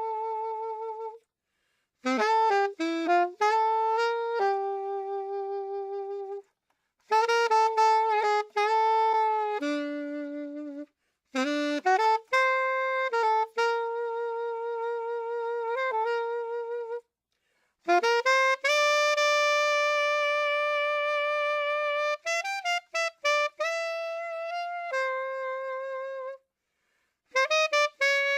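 Background music: a lone melody line with no accompaniment, played in phrases of held and quick notes with short gaps of silence between them.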